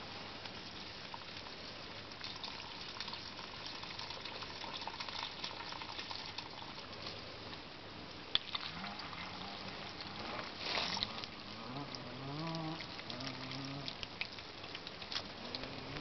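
Water trickling out of a garden hose onto straw mulch, a steady light splashing with scattered crackles and clicks.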